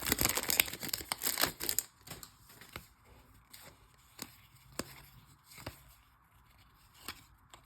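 A trading card pack wrapper crinkling and tearing open for about the first two seconds. Then come quieter, scattered light clicks and taps as the cards are handled.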